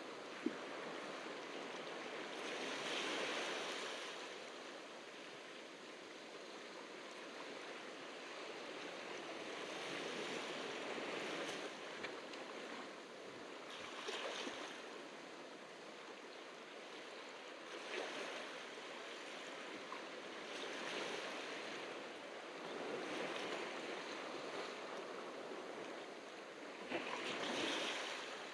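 Ocean surf washing onto the beach, a steady hiss that swells with each wave every few seconds; the biggest surges come about three seconds in and near the end.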